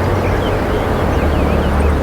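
Steady low outdoor rumble, with small birds twittering in the background: short high chirps several times a second.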